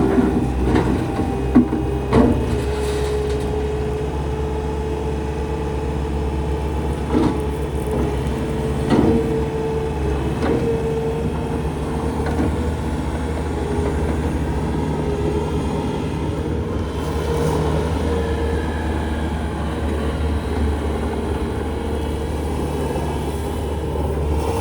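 Bobcat S650 skid steer loader's diesel engine running steadily, with a high whine that rises just at the start and then holds. A few sharp clanks come in the first ten seconds.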